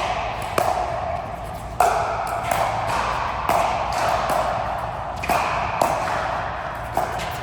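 Racket-sport rally: a string of sharp ball strikes off racket and court, roughly one every half second to second, some with a short ringing ping, over steady hall noise.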